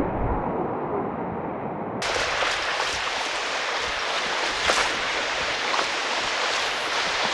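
Rushing whitewater current of a creek, a steady hiss of moving water. About two seconds in, the sound abruptly becomes brighter and fuller.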